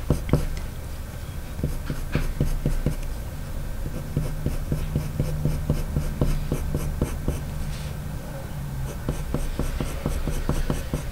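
Faber-Castell Polychromos walnut brown coloured pencil scratching across paper in many short, quick flicking strokes, several a second, laying down fine fur lines.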